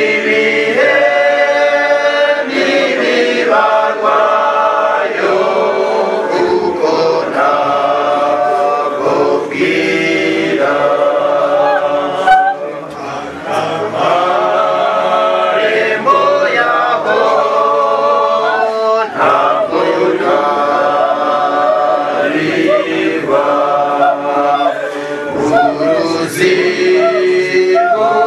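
Choir of voices singing together unaccompanied, in sung phrases with a brief lull about twelve seconds in.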